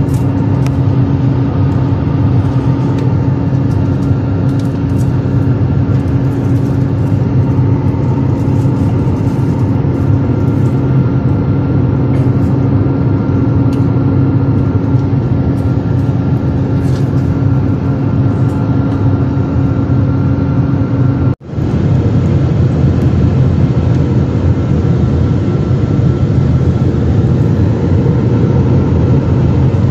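Jet airliner cabin noise in cruise: a steady, loud drone of the wing-mounted jet engines and rushing airflow, with a low hum and a steady tone above it. It drops out for an instant about two-thirds of the way through and comes back without the steady tone.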